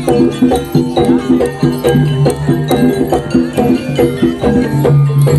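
Traditional Javanese jaranan music played live: a quick, even, repeating pattern of struck pitched percussion over a sustained low tone.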